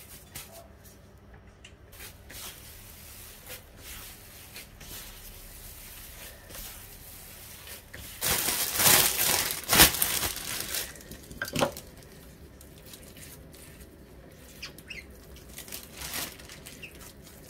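Gloved hands pulling apart and tearing a yeast-risen, spongy tofu and wheat-gluten dough, with soft rustling of the thin plastic gloves. The rustling and tearing grow louder for a couple of seconds about halfway through.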